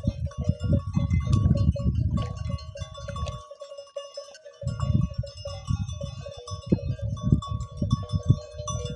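Wind buffeting the phone's microphone in irregular low gusts, with a short lull near the middle, over a steady thin ringing tone and faint bell-like notes.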